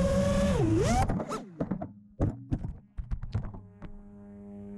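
FPV quadcopter's motors whining at high speed, dipping and rising in pitch, then cutting off about a second in as the drone crashes. A rapid string of knocks and thuds follows as it tumbles into the dirt, and a steady low hum sets in near the end.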